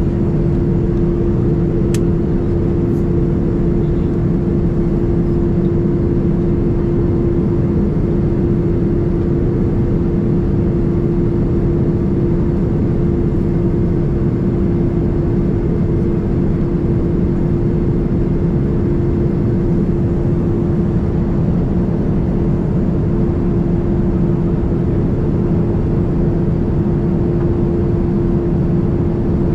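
Steady cabin noise inside a Boeing 787-9 Dreamliner: a continuous rush of engine and airflow with a constant hum, unchanging in level.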